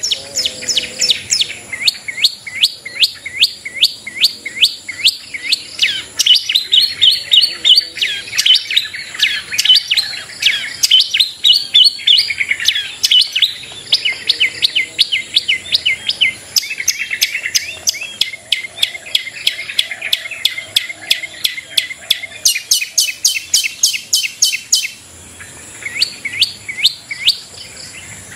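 Long-tailed shrike (cendet) in full song: fast runs of sharp downward-sweeping notes, several a second, mixed with warbling chatter, with a short lull near the end.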